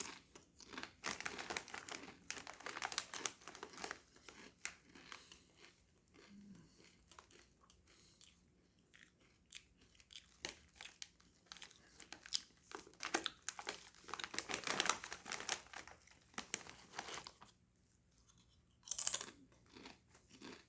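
A person chewing and crunching Doritos Twisted Queso tortilla chips in irregular clusters of crisp crunches, with a brief crinkle of the chip bag near the end.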